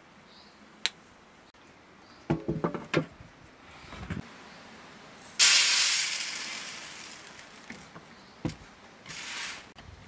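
Dried split peas poured from a ceramic pot onto a metal tray. A sudden loud rush of grains rattling on the metal starts about five and a half seconds in and fades over a couple of seconds, with a second, shorter pour near the end. Before it come a few knocks and clinks.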